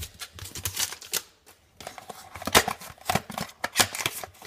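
Trading cards and their cardboard packaging being handled: an irregular run of sharp clicks and flicks of card stock, with a brief lull about a second and a half in.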